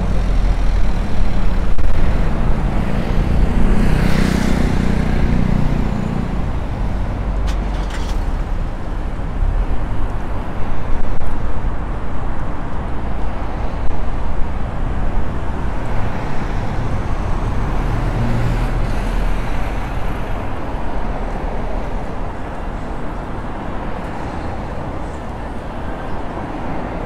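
City street traffic noise: cars driving past on the road with a steady rumble. A vehicle passes more loudly about four seconds in.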